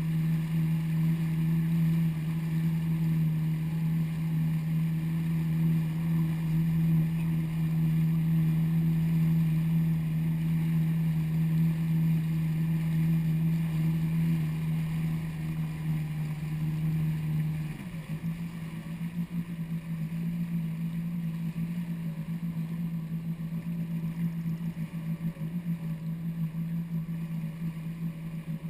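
Jet ski engine running steadily at cruising speed, a steady hum over rushing water. About two-thirds of the way through the note dips briefly and the engine goes quieter as the throttle eases, then holds steady.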